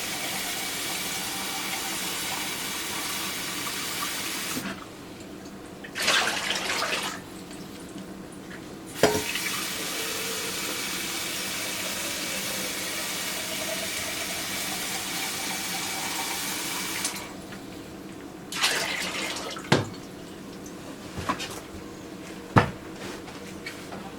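Water running steadily from a kitchen faucet into a glass jar. It is shut off about five seconds in, with a short splash a second later, and comes back on with a click around nine seconds. After it stops near the end, there are several sharp knocks of glass jars against metal.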